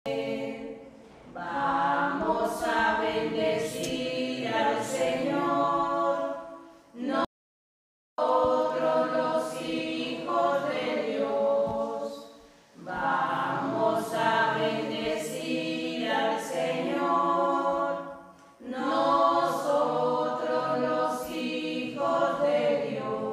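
A group of voices singing a hymn unaccompanied, in several phrases a few seconds long with short breaks between them. This is typical of the entrance hymn at the start of Mass. About seven seconds in, the sound cuts out completely for nearly a second.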